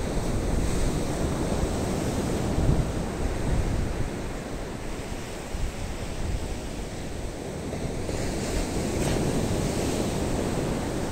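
Rough sea surf breaking and washing on a sandy beach, a steady wash of noise, with wind buffeting the microphone.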